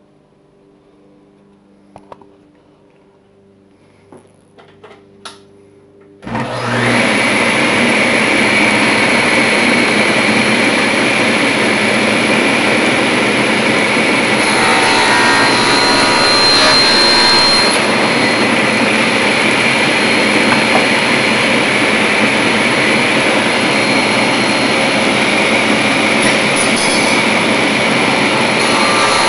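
Woodworking power tool switched on about six seconds in and running steadily with a high whine, after a few light clicks and knocks over a faint hum.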